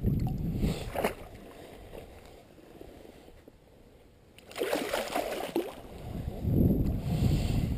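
Shallow creek water sloshing and splashing around a hand-held steelhead as it is released, loudest about halfway through. There is a low wind rumble on the microphone at the start and the end.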